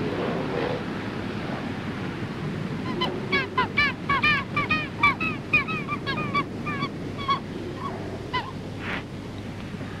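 Skuas calling: a rapid run of short arching calls, about four a second, starting about three seconds in and thinning to a few single calls before fading out, over a steady wash of surf and wind.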